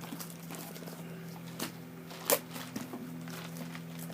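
Light clicks and scrapes of a knife and cardboard box being handled, with one sharper click a little past halfway, over a steady low hum.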